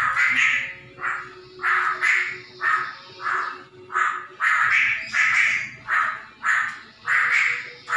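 Masked laughingthrush (Poksay Hongkong) giving a steady series of harsh, rasping, crow-like calls, about one and a half a second. Its owner finds the call strange and does not know why the bird makes it.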